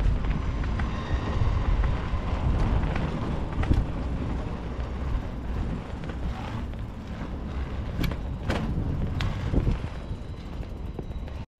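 Bicycle rolling over paving slabs: a steady low rumble from tyres and wind on the microphone, with scattered knocks and rattles as the wheels cross the joints. The sound cuts out for a moment near the end.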